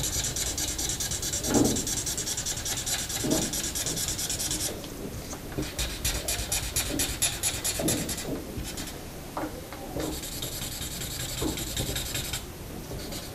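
Felt-tip marker scribbling on paper in quick back-and-forth strokes, colouring in a solid black area, in several runs broken by brief pauses.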